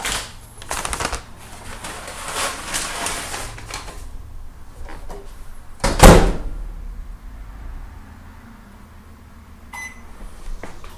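Microwave oven being loaded and started: rustling and knocks, a loud clunk about six seconds in, then a low steady hum and a short beep near the end.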